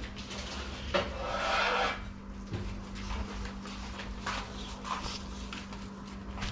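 Kitchen handling noises from a pizza on a metal baking tray being worked with a knife: a sharp knock about a second in, a short rustle, then a few lighter clicks, over a steady low hum.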